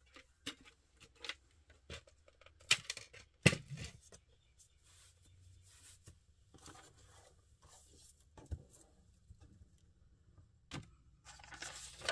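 Paper and craft materials being handled on a desk: scattered light taps and clicks with short paper rustles, the sharpest a few seconds in and a longer rustle near the end.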